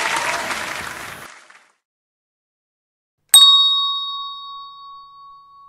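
Applause fading out over the first second and a half, then silence, then a single ding of a hand bell about three seconds in, ringing out slowly.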